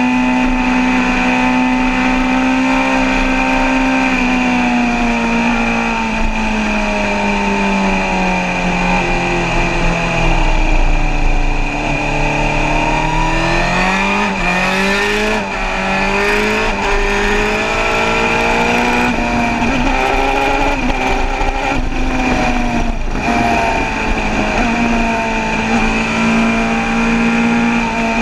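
Suzuki sport motorcycle engine running at high revs at motorway speed, with heavy wind rush on the microphone. The engine note sinks slowly for several seconds as the bike slows, then climbs quickly again about halfway through and holds steady.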